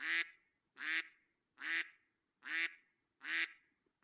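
A short honking call repeated at an even beat, five times, each one identical to the last, as from a looped sound effect.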